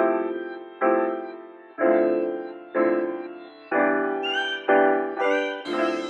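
Background music: keyboard chords struck about once a second, each fading before the next, with higher tones joining near the end.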